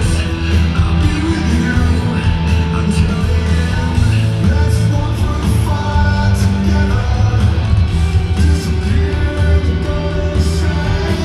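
Live rock band playing a song with a lead singer over drums, bass and guitars, with cymbals ringing steadily.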